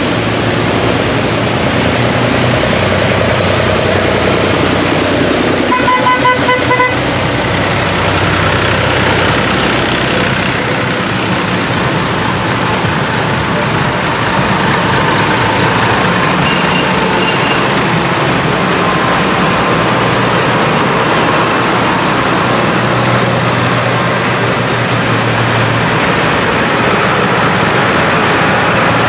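Diesel farm tractors, vintage and modern, running as they drive past in a line. A horn sounds for about a second, about six seconds in.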